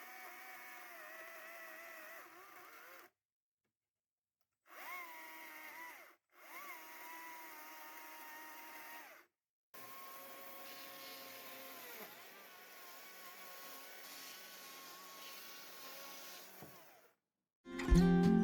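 Electric power tool motor whining steadily in several short clips split by abrupt cuts; its pitch rises as it spins up at the start of a couple of them. Guitar music comes in at the very end.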